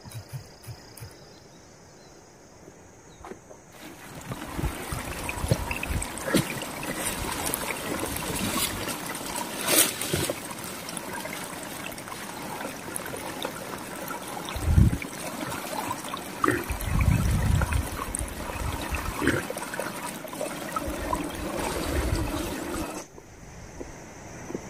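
Water trickling and splashing in a small stream, a dense, continuous rush full of small splashes. It starts suddenly a few seconds in, a few dull thumps sound near the middle, and it stops abruptly just before the end.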